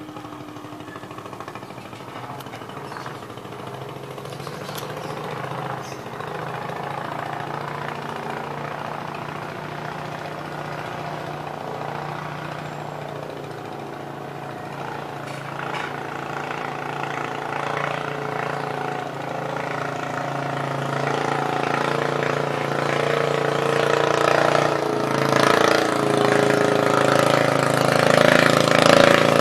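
Engine of a long, narrow wooden motorboat droning steadily on the river, growing louder as the boat comes nearer and speeds along, loudest near the end.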